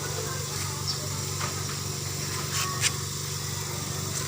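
Izumi Max air compressor running steadily with an even hum, with a few short clicks a little past halfway through.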